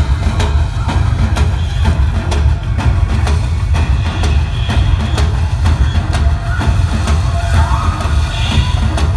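Instrumental show music led by drums: quick, driving drum strokes, several a second, over a deep, steady bass.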